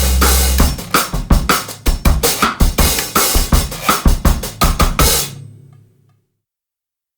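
Background music with a steady drum-kit beat, about two hits a second, fading out about five seconds in and ending in silence.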